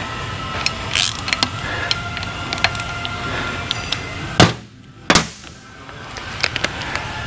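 Scattered clicks and knocks of hand tools and metal engine parts being handled during an engine teardown, over a steady background hum. A sharp click about four seconds in is followed by a brief near-quiet gap.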